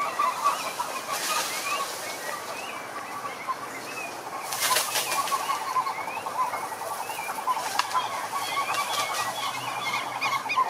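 Chorus of frogs calling, with rapid pulsed trills and many short rising chirps overlapping. A brief, louder rattling burst comes about four and a half seconds in.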